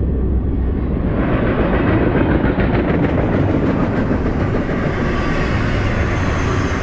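Double-stack intermodal well cars of a freight train rolling past: a steady rumble of steel wheels on rail with faint clicks as wheels cross rail joints. The sound grows brighter about a second in.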